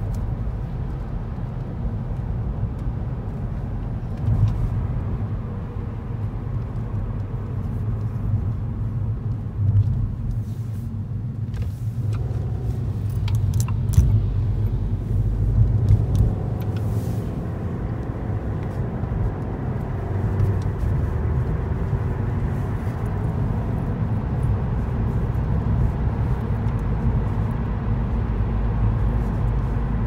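Steady low rumble of a car driving at road speed, engine and tyre noise heard from inside the cabin. A few brief clicks and knocks come between about ten and seventeen seconds in.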